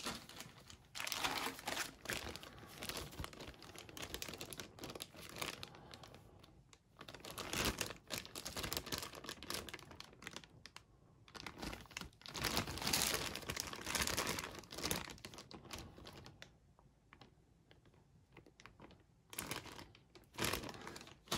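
Clear plastic bags holding plastic model-kit sprues crinkling as they are handled and lifted out of a cardboard box. The crinkling comes in several irregular bouts, with a quiet pause of a few seconds near the end.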